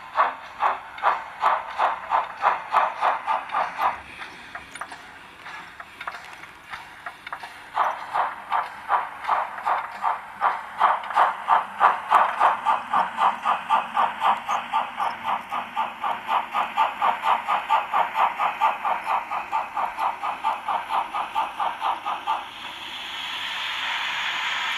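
Sound decoder of a BR 50 steam locomotive model playing the Henning Sound Altbau V5 sound project through the model's small loudspeaker: steam exhaust chuffing at about three to four beats a second, a quieter stretch about four seconds in, then chuffing again from about eight seconds. Near the end the chuffs give way to a steady hiss.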